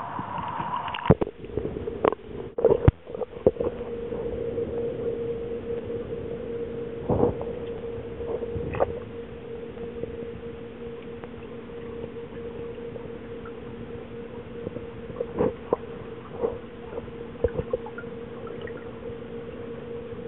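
Underwater sound inside a recirculating fish tank: a steady low hum on two tones, with a cluster of loud knocks about a second in as the camera goes through the net into the water, and a few softer bumps later on.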